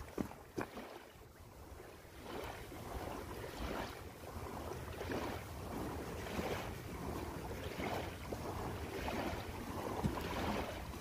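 Wind rumbling on the microphone by open water, with soft swishing swells about once a second, like small waves lapping.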